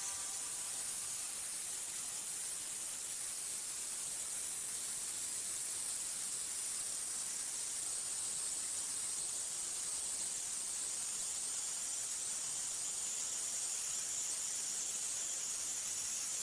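Simulated metallographic polisher: a specimen being ground on the spinning fine polishing wheel, heard as a steady high hiss.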